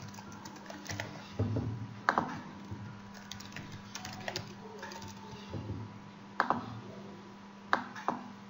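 Typing on a computer keyboard: irregular runs of key clicks, with a few louder clicks among them, over a faint steady hum.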